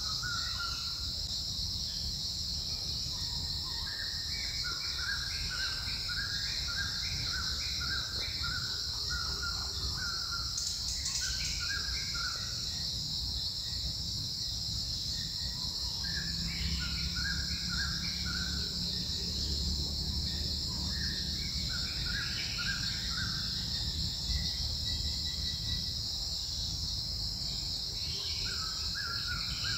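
Forest ambience: insects drone steadily at a high pitch, and several runs of short, rapidly repeated bird calls come every few seconds.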